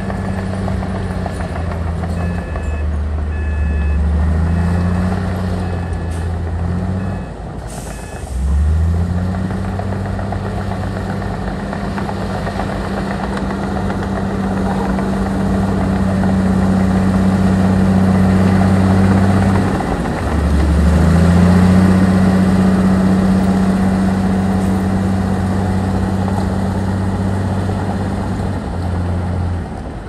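Heavy diesel earth-moving machinery running under load, its engine note dipping and picking up again twice. A reversing alarm beeps about once a second for the first several seconds.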